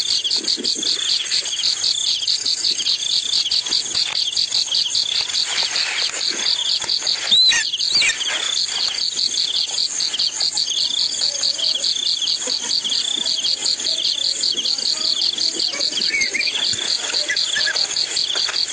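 Insects chirping in a steady, fast, even pulse throughout, with one brief louder sound carrying a short rising whistle about seven and a half seconds in.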